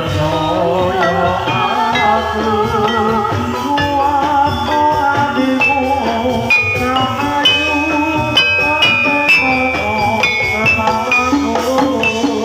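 Live Javanese gamelan music: ringing struck metallophone notes and steady drumming under a wavering vocal melody.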